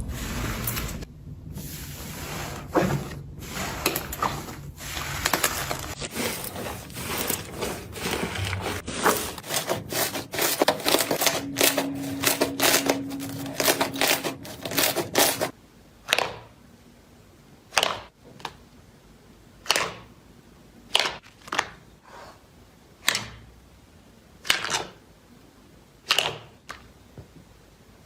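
Slime being squeezed and pressed, with dense crackling and popping for about fifteen seconds, then a run of separate sharp clicks about once a second.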